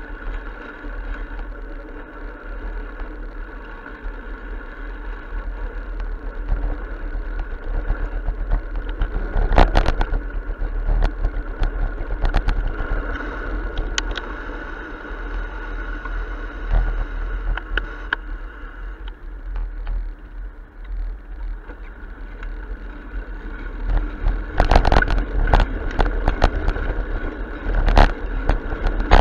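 Steady road and wind rumble from a moving bicycle, with nearby car traffic, and clusters of sharp rattling knocks as the bike and its camera go over bumps in the pavement, a few in the middle and more near the end.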